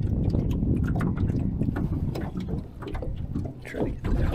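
Wind rumbling on the microphone over water lapping at an aluminium rowboat, with small clicks and knocks from handling, easing a little about halfway through. A short low vocal murmur comes near the end.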